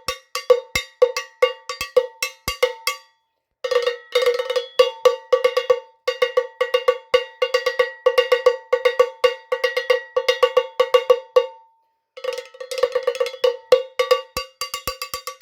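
Cowbell struck by hand in fast, uneven runs of clanking hits, each ringing briefly. The playing stops for a moment about three seconds in and again about twelve seconds in.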